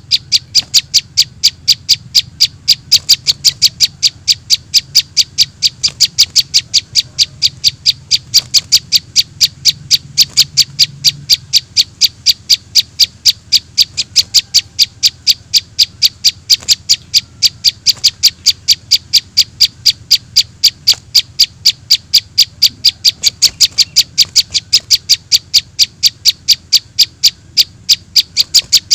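Juvenile prinia (prenjak) calls played as a bird-trapping lure: short, high chirps repeated very evenly, about four a second, over a faint low hum.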